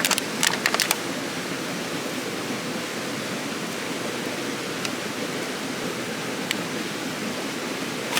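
Steady rushing of flowing water, a stream or small waterfall, with a few sharp clicks in the first second.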